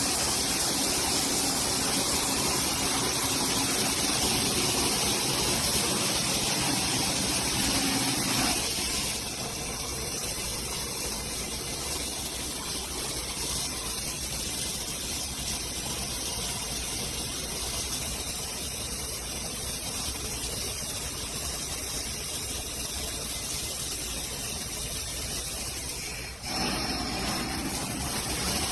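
Rainfall shower system running, water pouring steadily. The sound drops somewhat about nine seconds in and rises again shortly before the end.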